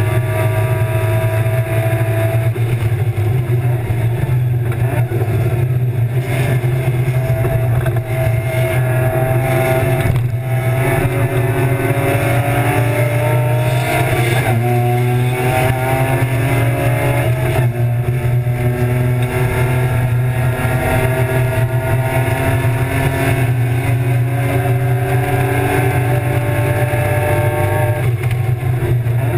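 BMW E36 325's M50 straight-six racing engine heard from inside the car's cabin, pulling hard with its note climbing in pitch, over a steady low drone. The pitch drops sharply at gear changes about fourteen and eighteen seconds in, then climbs again.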